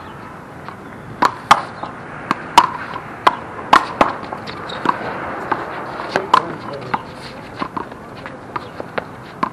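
One-wall handball rally: sharp, irregular smacks of a hand striking the ball, the ball hitting the wall and bouncing on the court. About a dozen of them start about a second in, and the loudest come in the first four seconds.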